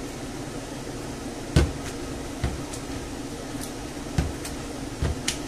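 Cooked potato and onion being mashed in a plastic bowl with a potato masher, the masher knocking against the bowl about five times at uneven intervals, loudest about a second and a half in, over the steady hum of a kitchen extractor fan.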